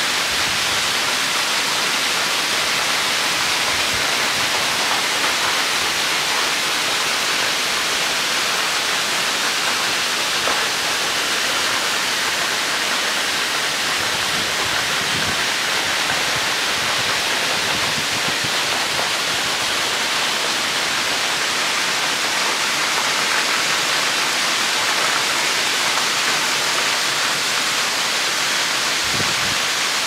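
Thin waterfall spilling off a rock ledge and splashing onto the rocks below: a steady, even hiss of falling water.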